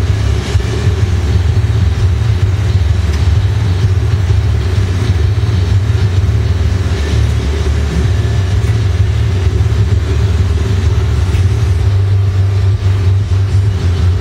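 Glassblowing bench torch burning steadily, a constant low rumble with no breaks.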